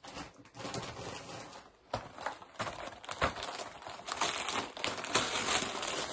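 Gift wrapping crinkling and rustling in quick irregular crackles as a present is unwrapped by hand, getting busier and louder in the second half.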